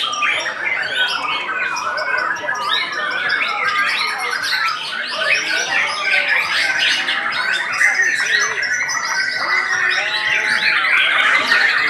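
White-rumped shamas (murai batu) singing at once, a dense tangle of overlapping whistles, trills and chatter. From about ten seconds in, a fast, even trill holds on one pitch above the rest.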